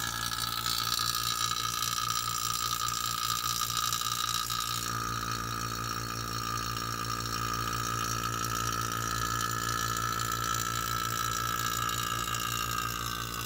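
Refrigerant vacuum pump running steadily with a whining hum, evacuating the truck's air-conditioning system through a manifold gauge set. Its tone shifts slightly about five seconds in.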